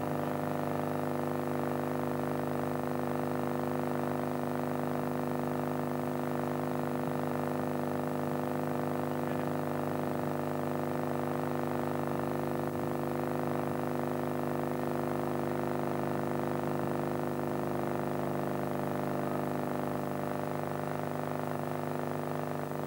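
Steady electrical hum with buzzy overtones, unchanging in pitch and level: a soundtrack fault of a poor-quality film recording.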